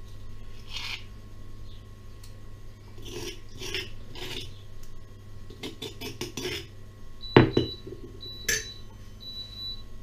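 Metal spoon scraping and clinking against a stone molcajete (Mexican pestle and mortar) while scooping out a thick chilli paste, a few short scrapes followed by a quick run of clicks. The loudest sound is a sharp knock about seven seconds in, with a lighter one a second later, as the stone pestle is set back in the mortar.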